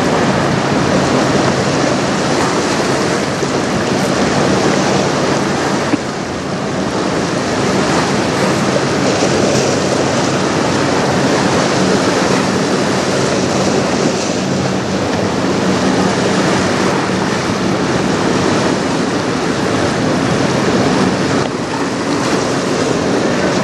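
Choppy, fast-flowing river water churning and washing along a rocky shore, with wind buffeting the microphone. A faint low steady hum sits underneath.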